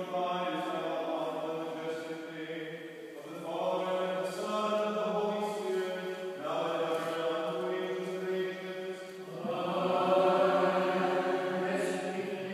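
Orthodox liturgical chant: held, steady sung notes in phrases, with a new phrase starting about every three seconds.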